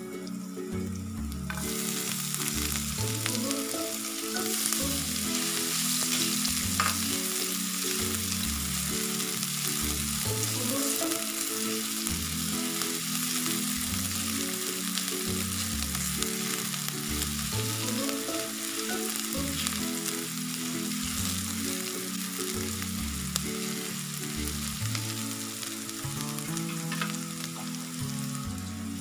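Chopped garlic and onion frying in hot oil in a nonstick pan, sizzling steadily. The sizzle grows louder about a second and a half in as the onion goes into the oil, and a silicone spatula stirs the pan at times. Background music with a repeating bass line plays underneath.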